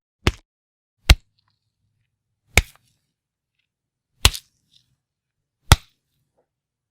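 Fight punch sound effects: five separate sharp hits with silence between them, the first a little quieter.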